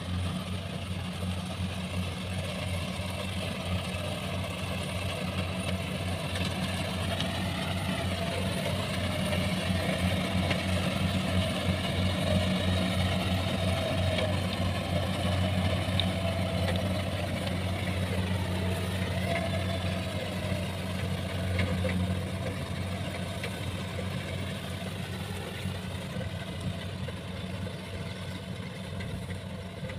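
Kubota rice combine harvester running steadily while cutting rice, its diesel engine and threshing machinery making a constant drone. The pitch dips briefly twice, and the sound is loudest near the middle as the machine passes close, then fades as it moves away.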